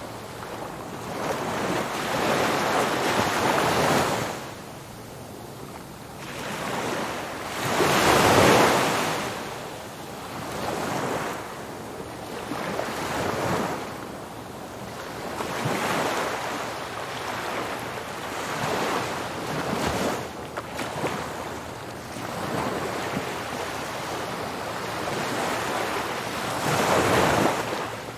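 Ocean surf: waves breaking and washing up a beach one after another, each rush of water swelling and fading over a few seconds. The biggest wave comes about eight seconds in, and another strong one near the end.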